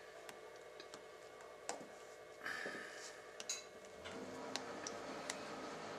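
Faint, irregular clicks and ticks as wax-lubed cast lead bullets are pushed out of a hardened cake of pan lube by thumb.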